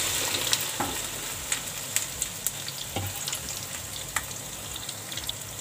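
Cut okra pieces sizzling in hot oil in a kadhai just after being tipped in, with scattered sharp pops; the sizzle slowly eases off.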